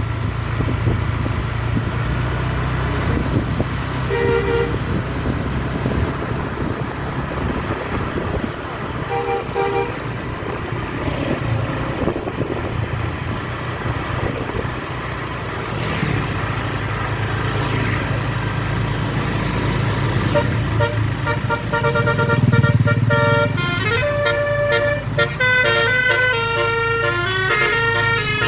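Basuri telolet musical air horn on a bus, heard over steady engine and road rumble. It gives short tooting notes about 4 and 9 seconds in, then from about 20 seconds in plays a long tune of quick stepping notes.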